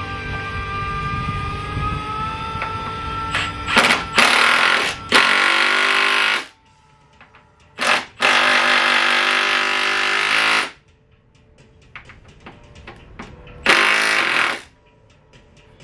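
A power tool run in three short bursts of about one to three seconds each, every one starting and stopping abruptly with a buzzing rattle; the middle burst is the longest. Music plays at the start.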